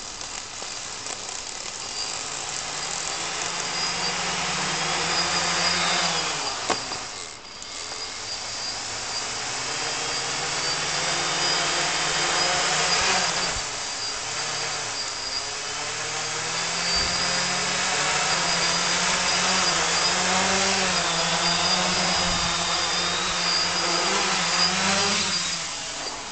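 Erle-Copter quadcopter's electric motors and propellers running during a take-off attempt, with a steady high whine over a lower hum. The pitch and loudness keep rising and falling as the motor speeds change, dip briefly about seven seconds in, and fall away near the end.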